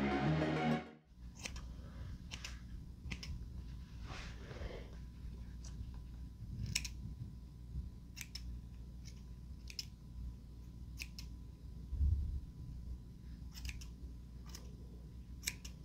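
Grooming scissors snipping the fur around a Shih Tzu's foot, single irregular snips every second or so. Background music cuts off about a second in, and there is one low bump toward the end.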